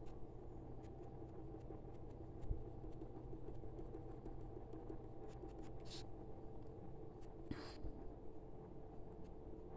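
Colored pencil scratching on paper in short, quick strokes as fur is drawn. A few louder strokes come about six and seven and a half seconds in.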